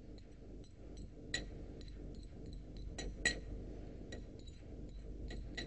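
A metal fork clinking and scraping against a plate while pushing shredded truffle peel off it. Scattered light clicks, with a few louder clinks about a second and a half and three seconds in.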